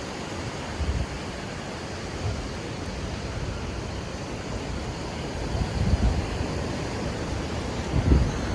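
Sea surf washing steadily onto a sandy beach, with a few low rumbles of wind on the microphone.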